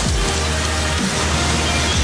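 Background electronic music with a deep bass line and a beat about every half second.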